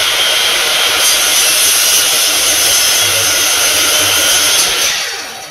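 Makita sliding compound mitre saw running and cutting through a thick hardwood board with a steady, loud whine, fading near the end.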